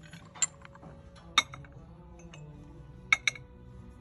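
Ceramic dishes clinking as a small cup and plates are handled and set down: four sharp clinks, two in quick succession about three seconds in.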